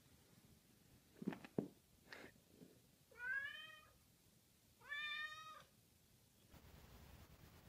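Domestic cat meowing twice, two short calls about a second and a half apart, after a few soft knocks.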